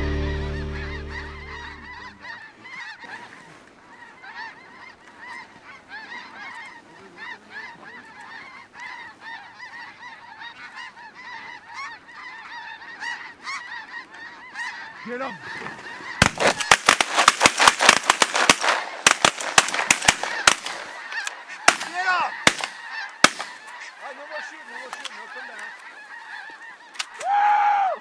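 A large flock of snow geese calling overhead, a steady chatter of many overlapping high honks. About halfway through the calling swells into a much louder, dense run of sharp honks for several seconds, and one loud single honk comes near the end. Music fades out in the first two seconds.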